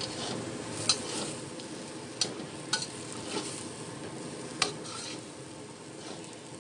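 Metal spatula scraping and clinking against a frying pan as a finished stir-fry of enoki mushrooms and egg is scooped out, over a steady sizzle. Four sharp clinks stand out over the scraping.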